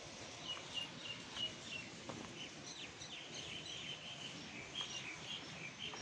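A small bird chirping: a string of short, high notes, a few a second, some falling slightly in pitch, over steady background noise.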